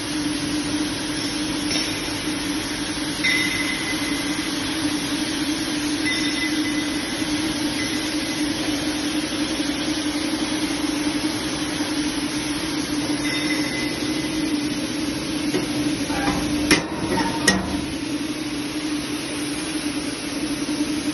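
Impact pulverizer grinding machine running steadily, a constant low hum under a noisy whir. Two sharp knocks come close together about two-thirds of the way through.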